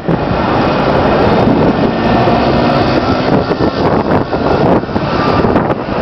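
Loud, steady rushing noise of an open city square, with wind buffeting the microphone.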